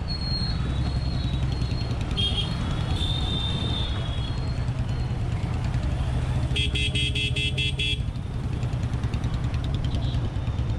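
Motorcycle engine running steadily at low speed in traffic, with a nearby vehicle horn honking for about a second and a half a little past the middle.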